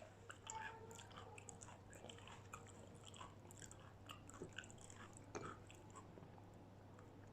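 Close-up chewing and biting of crispy battered fried food, with irregular soft crunches and crackles and one louder crunch about two thirds of the way through. A steady low hum runs underneath.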